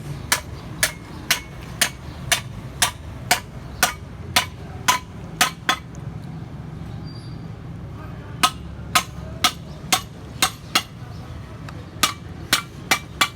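Hammer striking iron pipe in steady blows about two a second: a run of about a dozen strikes, a pause of a couple of seconds, then two shorter runs. A steady low hum runs underneath.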